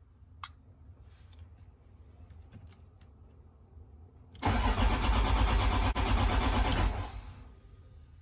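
Starter cranking a Toyota 1HD-FTE 4.2-litre straight-six turbo-diesel for about two and a half seconds, starting about halfway in and stopping without the engine catching. This is a no-start, which the owner suspects may come from the oil pressure switch or from the injection pump's spill control valve.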